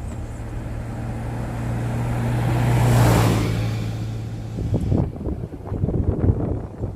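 Car driving along a road, heard from inside the cabin with a steady low engine and road hum. Another vehicle passes with a whoosh that rises to a peak about three seconds in and then fades. Near the end, irregular low thumps and rumble set in.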